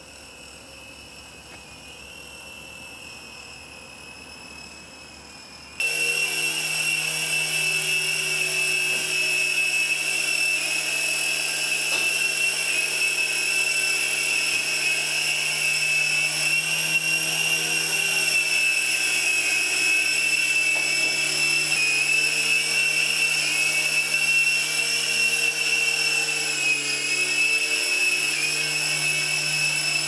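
iRemoco remote-control micro helicopter in flight: its small electric motors and coaxial rotors give a steady high-pitched whine over a low rotor hum, faint at first and much louder from about six seconds in.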